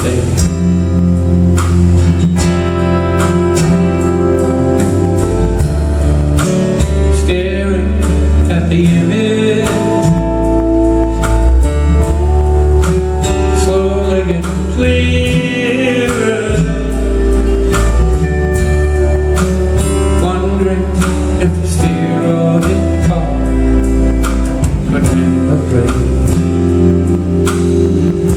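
Live band playing a song, with guitars, bass and drums, and some singing over the instruments.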